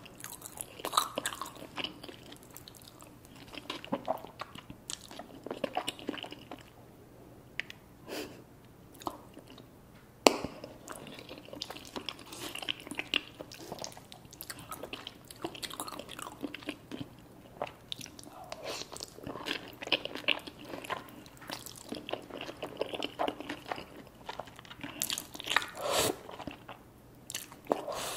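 A person eating close to the microphone: chewing and biting, with irregular crunchy clicks and crackles throughout and one sharp click about ten seconds in.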